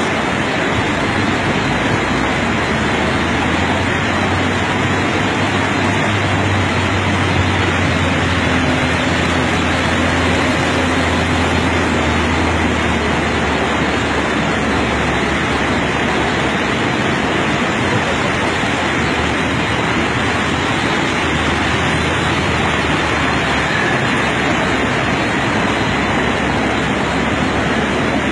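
A motor vehicle's engine running steadily under a loud, even rushing noise; its low hum comes in a few seconds in and drops away near the end.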